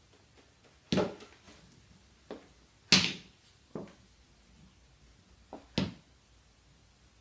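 Bare-hand karate strikes on a whole coconut resting on a concrete floor, each a sharp smack, as he tries to crack the shell. About six blows land a second or so apart; the hardest comes about three seconds in.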